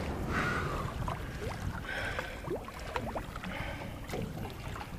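Water sloshing and splashing against the side of a small boat, with wind rumbling on the microphone and a few small splashes and drips throughout.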